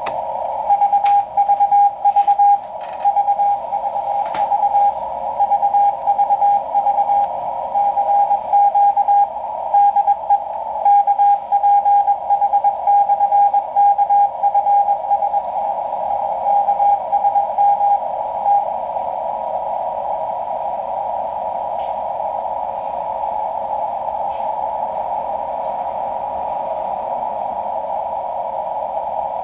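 Morse code from the maritime coast station KPH heard through a shortwave receiver in CW mode: a single keyed tone sending a "VVV CQ DE KPH" call over a narrow band of static hiss. The keying stops a little past halfway, leaving only the hiss.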